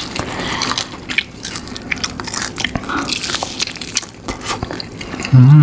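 Close-up biting and chewing of KFC fried chicken: crunchy bites, wet squishy chewing and lip smacks. Near the end comes a short, loud, falling voice sound.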